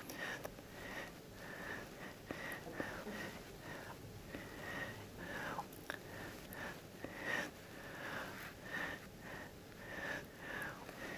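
A woman's short, sharp in-breaths and mouth clicks, one after another about once or twice a second, spliced together from a speech with the words cut out.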